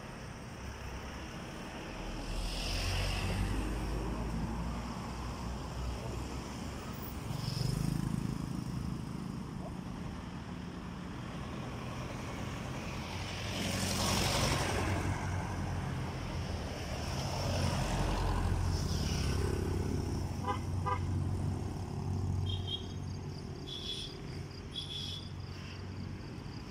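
Motor vehicles passing one after another on a road, their engine and tyre noise swelling and fading over a couple of seconds each, over a steady low rumble.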